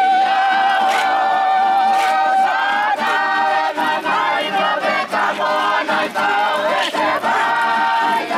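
A group of voices singing together, one voice holding a long high note for the first two and a half seconds before the parts move again, over a sharp beat about once a second.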